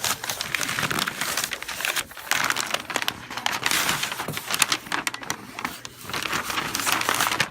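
Cardboard box and its packing being handled and opened, a dense run of rustling and crinkling with brief lulls about two and six seconds in.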